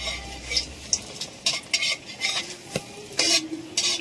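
A jackfruit batter fritter deep-frying in hot oil in a metal wok, with a steady high sizzle. A metal spatula turns and presses it, giving repeated short surges of sizzle and scraping against the pan; the loudest come a little after three seconds.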